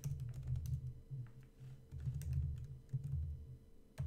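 Typing on a computer keyboard: irregular key clicks in quick runs, with a dull low thudding underneath.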